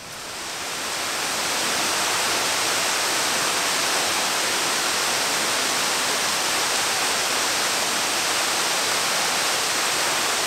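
Steady, loud rush of a waterfall, St. Louis Canyon Falls, pouring down into its canyon. It swells up over the first second or two, then holds even.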